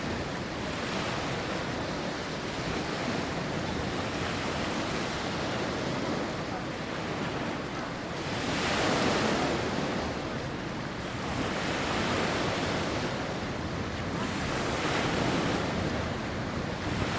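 Sea waves washing onto the shore, the surf swelling and falling back several times, loudest about halfway through. Some wind is heard on the microphone.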